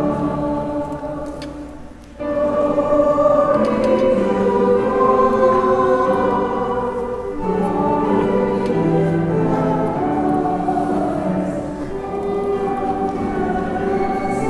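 A choir singing during Mass, holding long notes. The singing fades away about two seconds in, a new phrase starts strongly right after, and there is another short break about halfway through.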